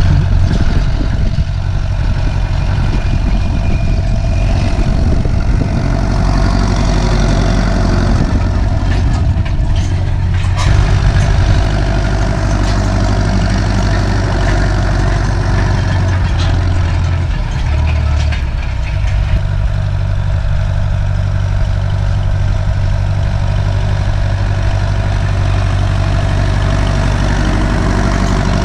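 Turbocharged Ursus C-360 tractor's four-cylinder diesel engine running steadily under load while pulling field rollers, at moderate revs. About two-thirds of the way through, the engine note dips briefly and then settles again.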